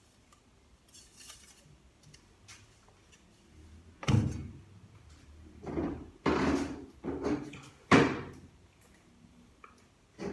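Metal automatic-transmission parts clanking as they are handled and set down: light handling noise, then a run of loud knocks with short metallic ringing from about four to eight seconds in.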